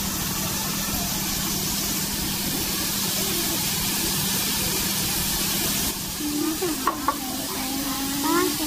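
Food sizzling steadily on a hot plate, cut off suddenly about six seconds in, after which faint voices are heard.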